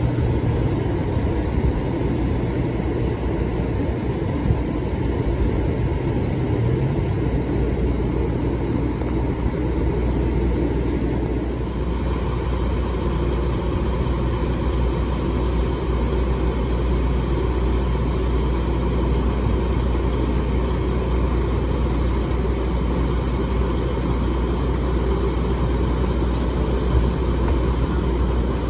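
Heavy diesel truck engines idling steadily, a low even hum that grows a little brighter about twelve seconds in.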